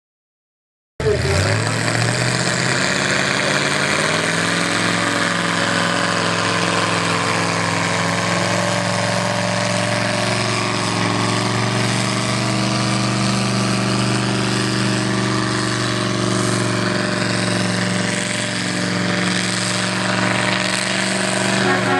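Pulling tractor's engine idling steadily, cutting in abruptly about a second in.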